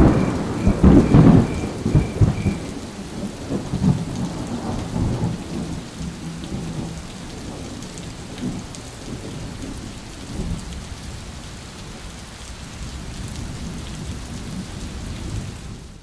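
Recorded rainstorm: a thunderclap breaks suddenly at the start and rumbles away over several seconds, over steady falling rain.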